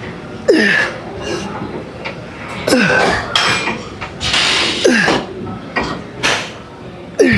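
A man grunting with a sharp exhale, four times about two seconds apart, each grunt falling in pitch, in time with the reps of a weightlifting set. Metal weights clink between them.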